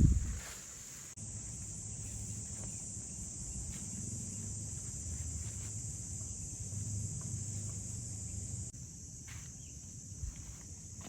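Steady high-pitched chorus of insects chirring in the forest, with a sharp low thump at the very start, then a low rumble and a few faint clicks of handling that stop abruptly near the end.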